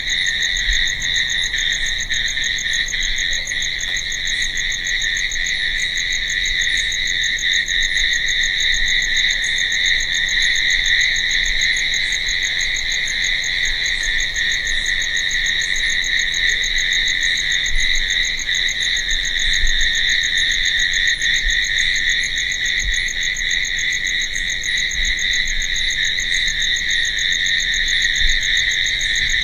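A dense chorus of crickets chirping without pause, a steady high trill that does not change in level or pitch.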